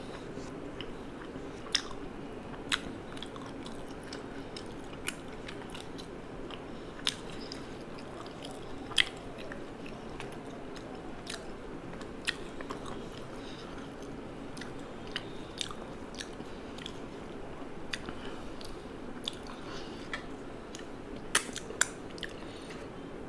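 Close-up eating sounds: chewing, broken by a dozen or so sharp crunchy clicks at irregular intervals, two close together near the end, over a steady low hum.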